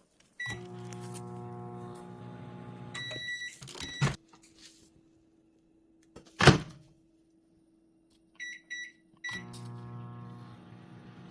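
Microwave oven heating sugar syrup in a short timed run: a steady hum, a run of beeps as the cycle ends, then a click, a loud thump about six and a half seconds in, keypad beeps, and the hum starting again near the end.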